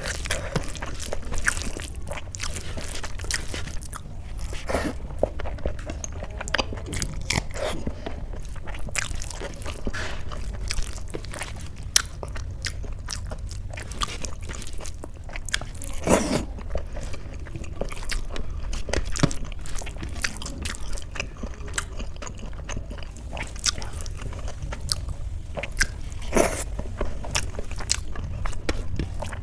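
Close-miked chewing and biting of food, with small crunches and wet mouth clicks scattered throughout, over a steady low hum.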